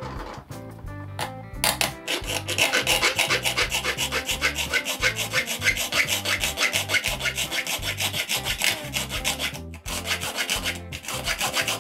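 Small flat hand file rasping the edge of a thin copper sheet in quick back-and-forth strokes, about five a second, with a short break about ten seconds in.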